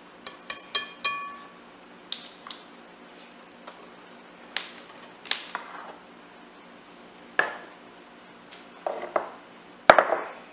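Wire whisk tapped four times against the rim of a glass mixing bowl, each tap ringing briefly. Scattered clinks and knocks follow, the loudest near the end as a glass measuring cup is set down on the counter.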